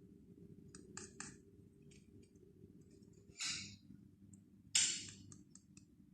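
A parrot making a few short clicks, then two short harsh squawks a second or so apart, the second the loudest. A steady low hum runs underneath.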